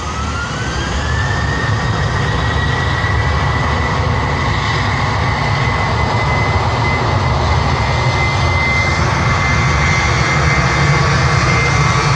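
Jet airliner's engines spooling up: a whine that rises in pitch over the first second or so, then holds steady over a low rumble that slowly grows louder.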